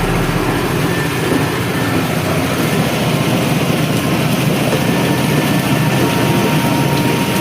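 Small 7 HP petrol engine running steadily, driving a chicken feather plucking machine through a WPO 60 worm gearbox. A low hum fades out in the first second.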